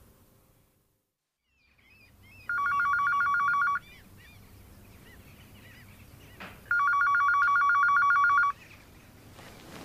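Electronic ringer of a white push-button telephone ringing twice with a rapid two-pitch warble. The rings are about a second and a half long and about four seconds apart.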